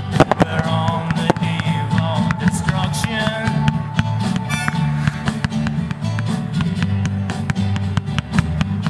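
Guitar-led rock song playing with no singing, while firework shells crack and pop again and again over it.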